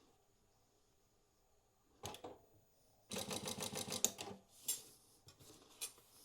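Industrial walking foot sewing machine (Prosew PS-1903SX) stitching out a short programmed segment: a rapid, even run of about a dozen stitches at roughly ten a second, lasting just over a second, preceded by a brief mechanical burst and followed by a few separate clicks as the machine stops.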